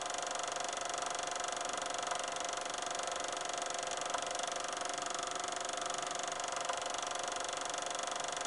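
Steady hiss with several faint steady tones underneath and a few soft ticks, unchanging throughout.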